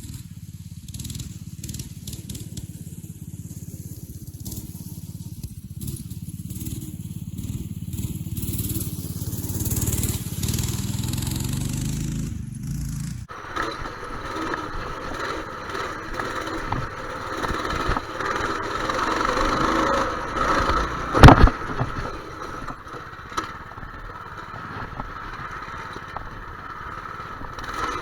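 Motorcycle running, its sound changing abruptly about halfway through, with one sharp, loud knock in the second half.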